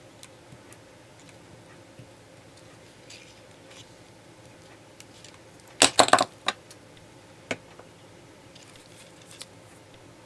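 A quick cluster of small plastic clicks and clatter about six seconds in, with a few lighter ticks around it: a plastic glue stick being handled and set down beside the paper pieces.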